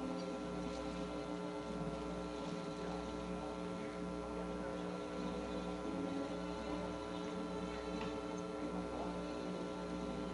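A steady hum of many held tones, with a low throb pulsing about twice a second underneath.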